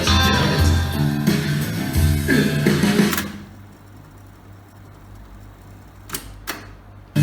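A song with guitar played back from a cassette on a Tascam 122 deck through speakers, cutting off about three seconds in. A low hum remains, and two sharp mechanical clicks come in quick succession near the end.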